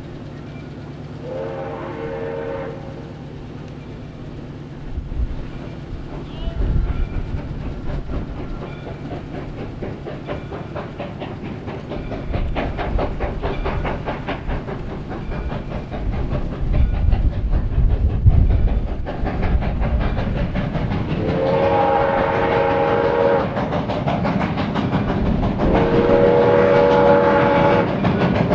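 Soo Line 1003, a 2-8-2 Mikado steam locomotive, approaching with its exhaust chuffing rapidly and growing steadily louder. Its steam whistle blows a short blast about two seconds in, then two long blasts near the end.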